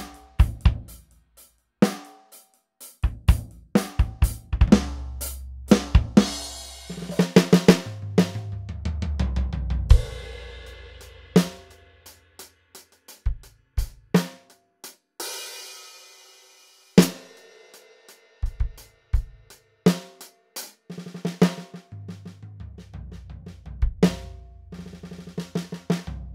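ATV aDrums Artist electronic drum kit played with sticks, heard through its sound module: kick, snare and tom fills with cymbal crashes and quick runs of strokes. Partway through, the module switches from its 'Real Groove' kit sounds to its 'Unplugged' kit sounds.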